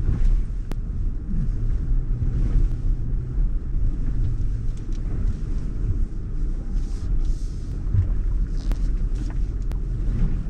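Land Rover driving slowly off-road: a steady low rumble of engine and tyres, with a few sharp clicks.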